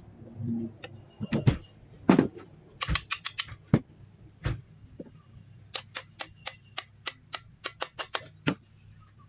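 Claw hammer tapping a small fitting into the wooden stock of a homemade speargun. A few scattered knocks come first, then a quick, even run of about ten taps at roughly four a second in the second half.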